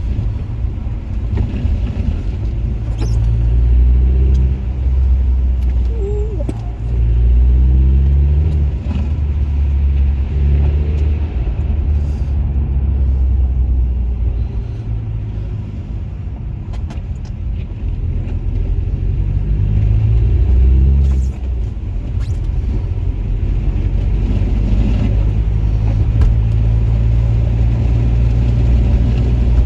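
Honda Accord Sport being driven: a steady low engine and road rumble, the engine note climbing and falling back several times.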